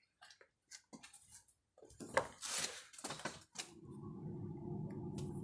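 Irregular clicks and short rustling noises, then about three and a half seconds in the Toyota Ist's 2NZ four-cylinder engine starts and runs with a dense clatter. The clatter is the stretched timing chain knocking while fresh oil is pumped up after an oil change.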